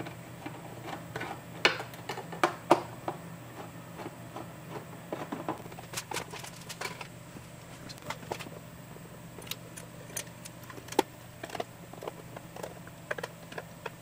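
Scattered small clicks and taps of a hand screwdriver, screws and a mounting plate being handled as a monitor stand is unscrewed and a mounting bracket is fitted to the back of the monitor, over a steady low hum.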